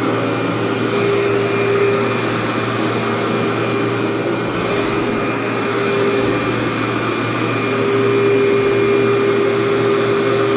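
Workhorse vacuum cleaner running steadily on carpet: a constant motor and suction noise with a steady whine that grows louder at times.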